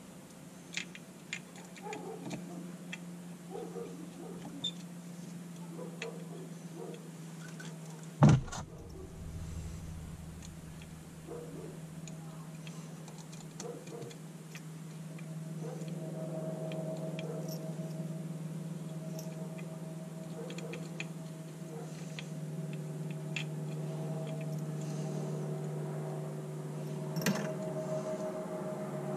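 Small carburetor parts from a Yamaha Grizzly ATV clicking and tapping as they are handled and fitted by hand, with one loud knock about eight seconds in. A steady low hum runs underneath, joined by a higher steady tone from about halfway.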